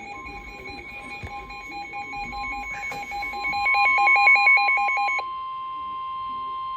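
Weather radio alert tones ahead of a special marine warning. A steady single tone near 1 kHz, the NOAA Weather Radio warning alarm tone, sounds throughout. Over it, a rapid alternating electronic beep pattern grows louder and then stops abruptly about five seconds in.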